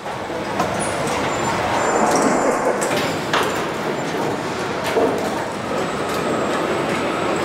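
Car assembly-line machinery: a steady mechanical din with scattered clanks and clicks, including a sharp knock about three seconds in.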